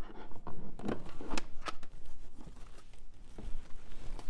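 A 3D-printed plastic kneeboard being handled as its elastic bands are pulled off, with rubbing and scraping and a few sharp plastic clacks between one and two seconds in.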